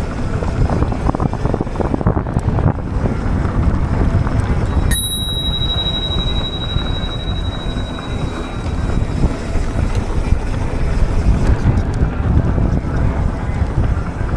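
Wind buffeting the microphone over the rumble of a Commencal Meta SX mountain bike's tyres rolling fast down a dirt trail. A sharp click about five seconds in, followed by a thin high ring that fades after a couple of seconds.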